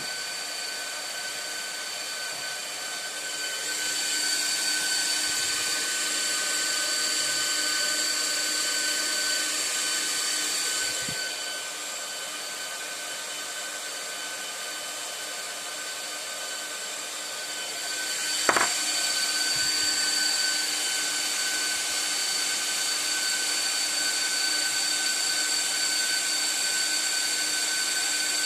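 Cooling fans of an Antminer ASIC miner running: a steady rushing fan noise with a high whine. The fans speed up about four seconds in, slow around eleven seconds, and speed up again near eighteen seconds, with a single sharp click as they do.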